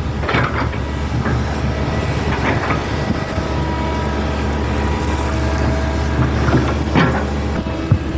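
Hydraulic excavator's diesel engine running steadily under work, with several sharp knocks from the machine working, the loudest about seven seconds in.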